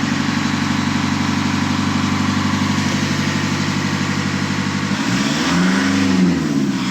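Nissan Patrol ZD30 four-cylinder diesel engine running at a steady idle, then revved up and down in blips from about five seconds in.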